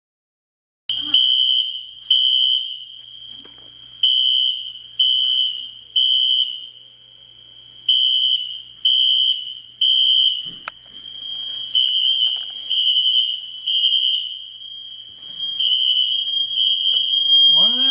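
Fire alarm sounding a high-pitched electronic tone in the temporal-three evacuation pattern: three beeps about a second apart, a pause, then again. It starts suddenly about a second in and keeps repeating.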